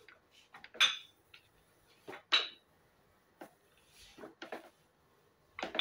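A rolling pin knocking and clattering against a wooden cutting board as dough is rolled out: a handful of short, sharp knocks with quiet gaps between.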